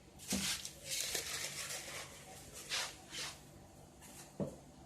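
Rustling in several short bursts, with a single light knock near the end.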